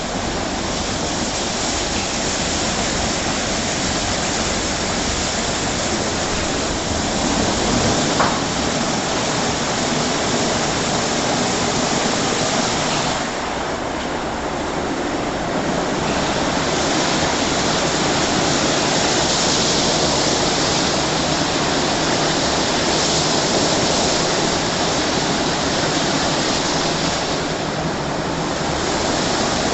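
WashTec SoftCare 2 Pro rollover car wash running: water jets spraying and rotating wash brushes sweeping over a car, a steady rushing hiss. The hiss eases briefly twice, about halfway through and near the end.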